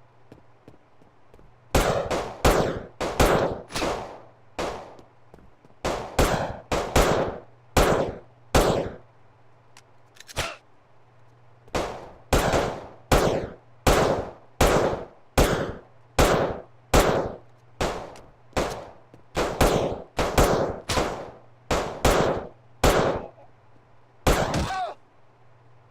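Repeated sharp impacts with a short ringing tail, about two a second, in runs broken by short pauses, over a faint steady hum.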